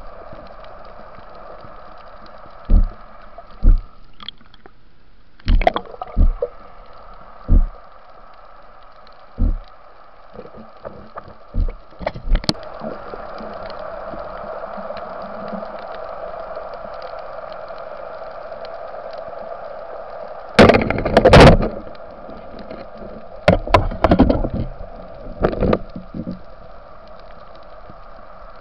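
Muffled underwater sound picked up through a camera's waterproof housing while spearfishing: a steady hum with scattered knocks and bumps from handling gear, and louder bursts of noise about 21 and 24 seconds in.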